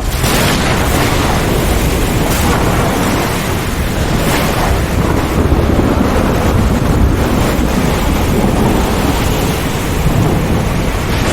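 Thunderstorm: loud rolling thunder with a few sharp cracks, over a steady hiss of heavy rain.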